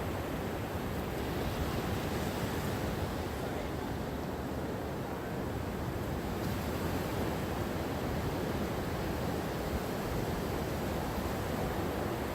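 Gentle ocean waves washing on a shore: a steady wash of surf with no distinct breaking crashes.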